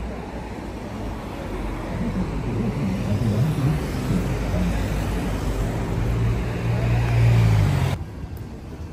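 A motor vehicle's engine running close by in street traffic, growing louder for several seconds and then stopping abruptly near the end.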